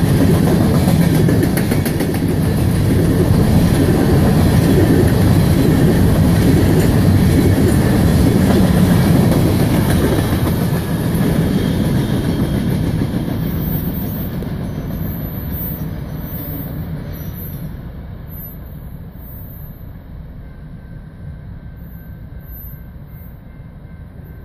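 Loaded covered hopper cars of a freight train rolling past with a steady rumble and clicking wheels. About eleven seconds in the last car goes by and the sound fades away as the train recedes.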